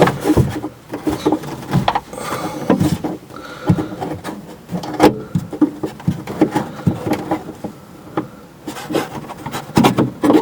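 Hands working inside a car door, fitting the exterior door handle's linkage rod. Irregular clicks, taps and rubbing of metal parts inside the door.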